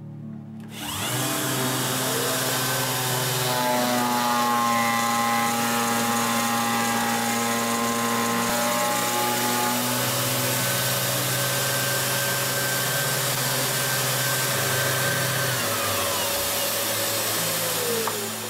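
Festool electric disc sander with 4000-grit abrasive polishing end-grain wood samples pressed against the spinning disc. It starts about a second in with a rising whine, runs steadily, then its pitch falls near the end as it winds down.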